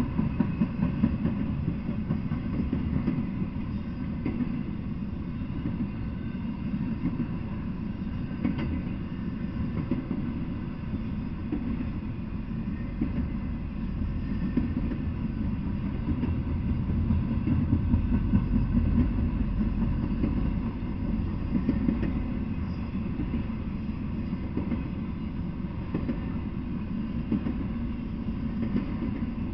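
Intermodal freight train cars rolling past, a steady low rumble of steel wheels on the rails that swells and eases slightly as the cars go by.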